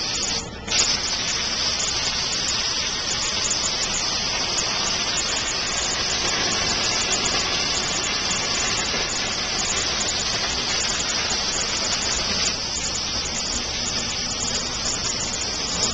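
Hypertherm plasma cutter on a CNC table cutting metal plate: a loud, steady, harsh hiss from the torch's arc and compressed-air flow. The hiss drops out briefly just under a second in and comes back with a sharp crack as the arc restarts.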